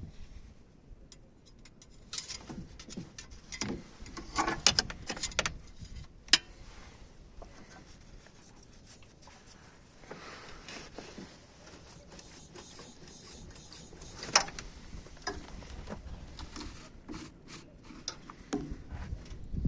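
Irregular knocks and clicks with rubbing between them, in clusters: a run of sharp knocks a few seconds in and another near the end, the loudest a single knock about six seconds in.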